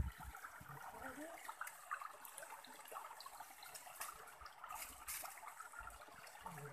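Shallow stream water trickling faintly, with scattered small clicks and taps from hands working in wet mud and a net of fish.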